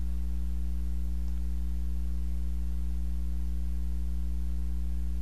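Steady electrical mains hum: a low drone with a few higher overtones, holding perfectly even with no other sound.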